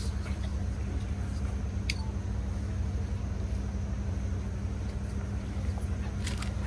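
Steady low electrical hum with a light background rumble, and a single sharp click about two seconds in.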